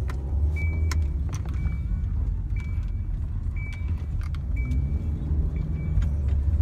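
Low rumble of a car heard from inside the cabin, with a short high beep repeating about once a second and a few sharp handling clicks.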